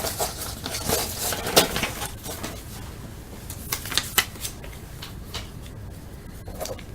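Trading cards being flipped through by hand: a scatter of light, irregular clicks and snaps as the cards slide over one another, thinning out in the second half.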